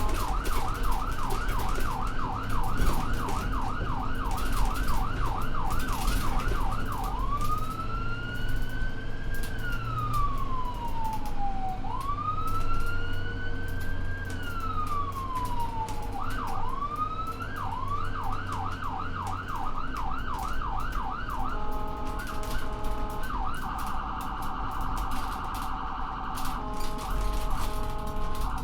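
Ambulance's electronic siren cycling through its tones. A fast yelp of about three sweeps a second gives way to two slow wails, each rising and falling over about five seconds. The yelp then returns, followed by a high-low two-tone, a rapid warble, and the two-tone and yelp again, all over a low vehicle rumble.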